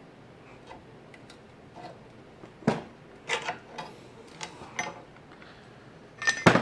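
Hand tools working on the steel hub and brake parts of a Coleman 4x4 front axle, making irregular metal clinks and knocks as a part is worked loose. There is a loud knock about two and a half seconds in and a quick cluster of louder knocks near the end.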